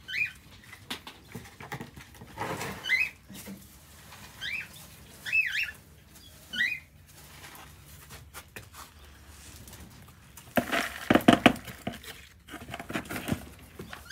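Hand brush and dustpan scraping and sweeping straw across a concrete floor, loudest about ten and a half seconds in. Before that comes a handful of short, high, rising squeaks.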